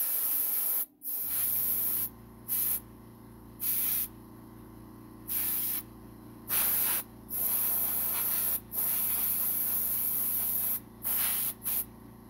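Paint being sprayed in short hissing bursts of uneven length, about ten of them, the longest around two seconds. A steady low hum starts about a second in and runs beneath them.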